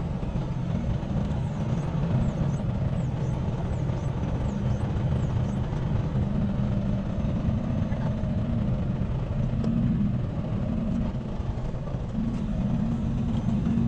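Semi truck driving down the road: a steady, low engine and road noise.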